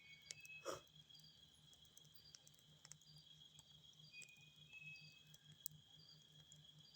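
Faint forest ambience: a steady high insect trill, with a low pulsing several times a second, short high notes now and then and scattered clicks. One brief louder noise burst comes just under a second in.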